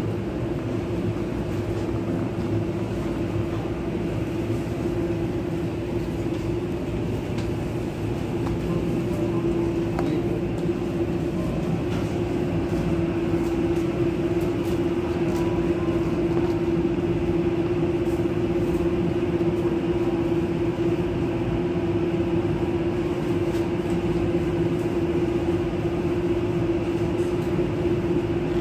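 Shopping cart wheels rolling on a tiled floor: a steady rumble with a constant hum underneath.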